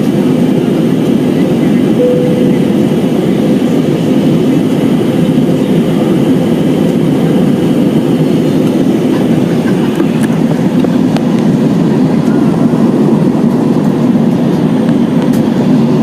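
Steady drone of engines and rushing air inside the cabin of an Airbus A320 in flight.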